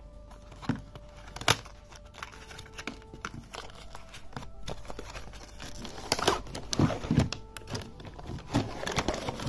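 Cardboard box being opened, with a couple of sharp clicks near the start, then clear plastic packaging crinkling and rustling through the second half as the powerbank is taken out.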